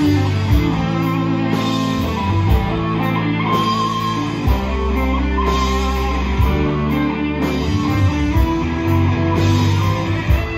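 Live rock band playing an instrumental passage without singing: electric guitars over bass and a drum kit with a steady cymbal beat.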